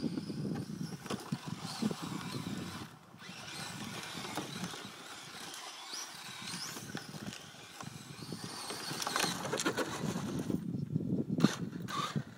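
Kyosho DRX RC rally car with a Castle 2650 kV brushless motor driving on a dirt track: the motor whines up and down with the throttle over the scrabble of tyres on loose dirt and grit, getting louder as the car comes close near the end.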